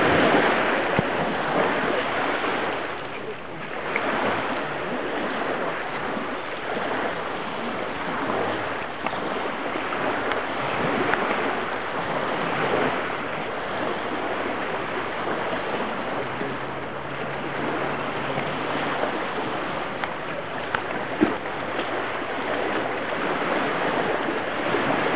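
Steady rushing noise of lake water washing on a gravel shore, mixed with wind on the microphone.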